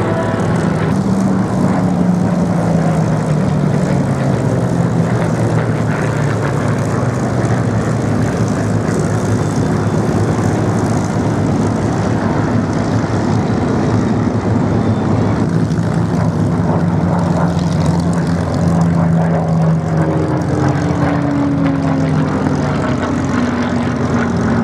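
V12 piston engines of Hispano Buchon and Spitfire warbird fighters, running hard as the aircraft fly past. The engine note falls in pitch as one passes, about a second in, and again as another goes by near the end.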